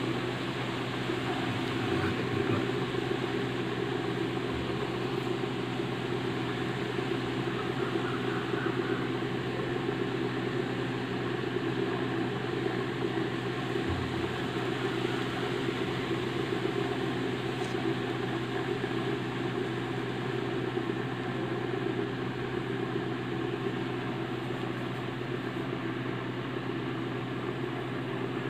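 Small 5 V DC motor salvaged from a CD drive running steadily and turning a belt-driven disc past pickup coils, a continuous hum and whir of the homemade generator at work, with a brief handling knock about fourteen seconds in.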